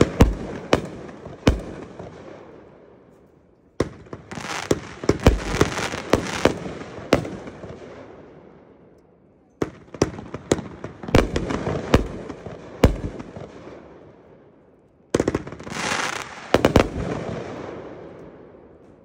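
Consumer fireworks going off in volleys, each a cluster of sharp bangs followed by a fading crackle and hiss, with a new volley about every five to six seconds.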